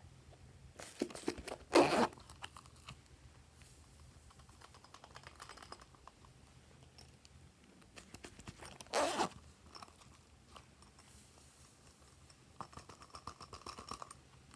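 Hands handling slime add-ins over a tray of slime: short crackling, rustling handling noises. The loudest comes about two seconds in, another about nine seconds in, and a run of quick ticks near the end as red glitter goes onto the tray.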